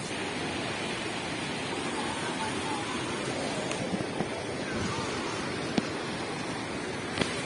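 Steady rushing of a muddy stream running high and fast in flood, with faint voices and a few small knocks over it.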